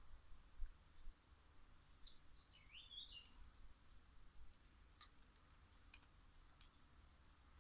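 Near silence with faint, scattered clicks and scrapes from a knife working the sheath of an old power cable. A small bird chirps once, about two and a half seconds in.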